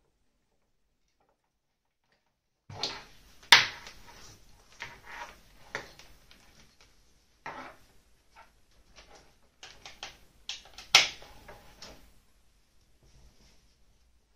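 Clicks, knocks and rustling as cables are plugged into a small plastic satellite receiver and the box is handled on a desk, starting about three seconds in, with two sharper knocks about eight seconds apart.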